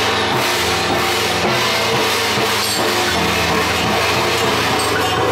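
Loud temple-procession percussion music: a dense clash of gongs and cymbals over held low tones that break off in a steady rhythm.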